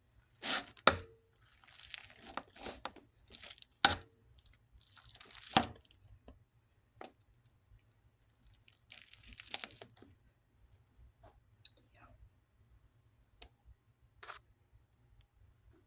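Someone eating after the blessing: crunching and chewing in several patches over the first ten seconds, with three sharp knocks. After that only faint ticks are heard.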